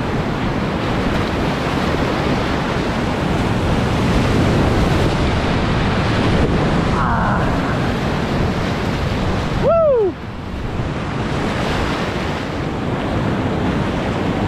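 Whitewater rapids rushing loudly, heard from a kayak running them. About ten seconds in a short falling whoop from the paddler cuts through, and the rushing then drops a little.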